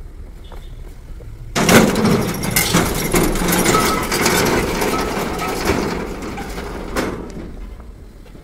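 Slatted steel loading-ramp plates clattering and banging under a car's tyres as it is driven up into a car-carrier rail wagon. The loud rattling starts suddenly about a second and a half in and ends with a last clank at about seven seconds.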